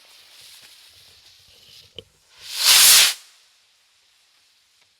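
Consumer firework rocket (Top Gun Flying Eagle): the lit fuse hisses, a small pop comes about two seconds in, and then the rocket motor ignites and launches with a loud whoosh that lasts under a second and fades as it climbs.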